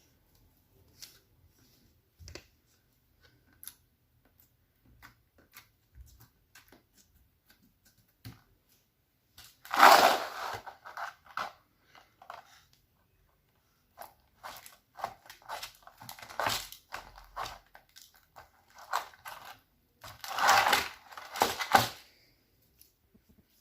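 Slime being squished and pulled by hand: small sticky clicks and crackles, with louder crackling squishes about ten seconds in, again a few seconds later, and near the end.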